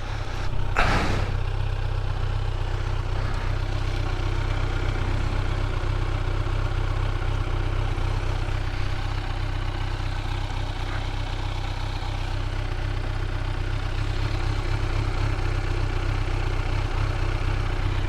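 A Kawasaki Z900's inline-four engine running steadily at idle. There is a brief sharp noise about a second in.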